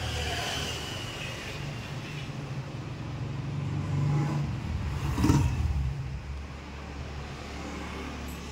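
A motor vehicle engine running close by, a low rumble that swells around four to five seconds in, with a short knock about five seconds in.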